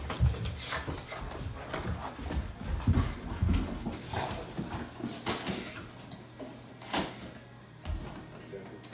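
A dog running and playing on carpet: irregular thuds and scuffles of its paws, with a few sharper knocks.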